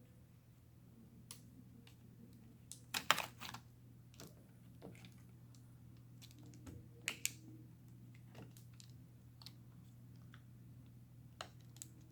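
Scattered small clicks and taps of tools, screws and parts being handled against an open laptop during a battery installation, with a brief cluster of clicks about three seconds in and another about seven seconds in, over a faint steady low hum.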